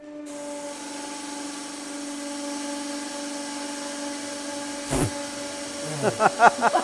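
Hydraulic press running slowly with a steady hum and faint hiss as it forces wax through an extrusion die. A single sharp knock comes about five seconds in, followed near the end by a run of short squeaky chirps.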